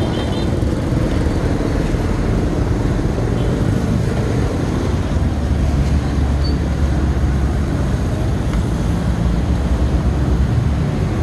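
Steady low rumbling street background noise, with no single event standing out.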